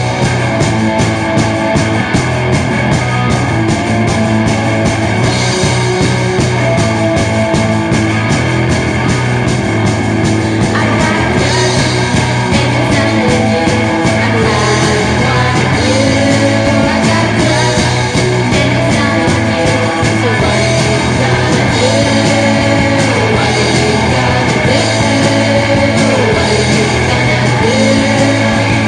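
A rock song from a band's demo, with guitar and a singing voice.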